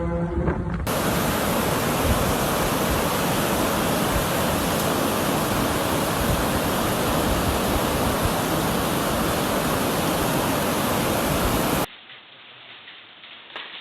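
A few steady humming tones at several pitches, then a loud, steady rushing noise that starts abruptly about a second in and cuts off suddenly near the end.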